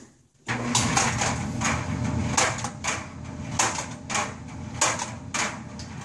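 Clothes dryer starting up about half a second in, its motor and drum running with a steady low hum, while a plastic computer mouse tumbles inside and knocks against the drum about twice a second at uneven intervals.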